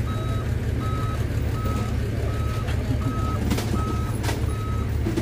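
A heavy truck's reversing alarm beeps steadily, one beep about every three-quarters of a second, over the low running of a diesel engine, most likely the tow truck pulling the overturned dump truck. A few sharp clicks come about three to four seconds in.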